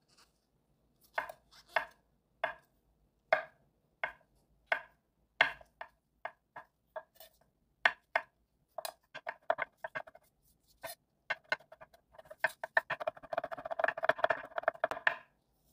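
Kitchen knife mincing shiitake mushroom trimmings: separate chops at first, coming gradually faster, then a quick run of rapid chopping for the last few seconds before it stops.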